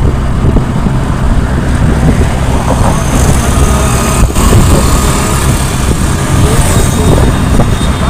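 Motorcycle riding at speed: a steady engine hum under a loud, even rush of wind over the microphone.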